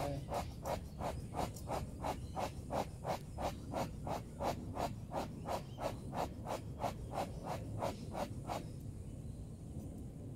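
A rhythmic run of short, even scraping strokes, about three a second, that stops a little before the end.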